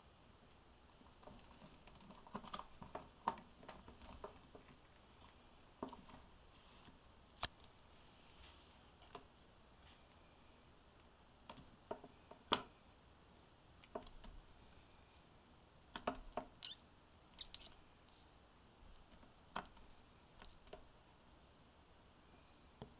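Near silence broken by faint scattered clicks and taps, with a few brief high squeaks about two-thirds of the way in, from a white feeder rat held in a ball python's constricting coils in a plastic tub.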